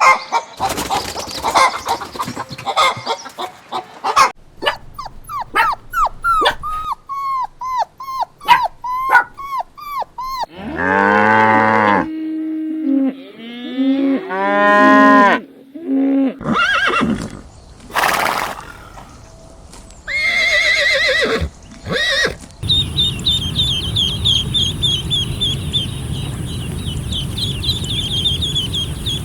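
A run of different farm-animal calls, changing abruptly from one to the next, among them a cow mooing; from about two-thirds of the way in, rapid high chirping over a steady low rumble.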